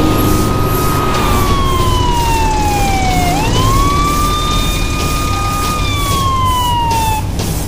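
Police motorcycle siren sounding a slow wail: a steady tone that slowly falls, jumps back up about three seconds in, holds, then falls again near the end, over a low rumble of traffic.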